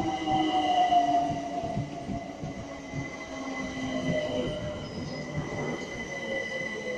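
London Overground electric train slowing along the platform. Its motor whine falls steadily in pitch while a steady high wheel squeal carries on. It grows quieter over the first few seconds as it brakes.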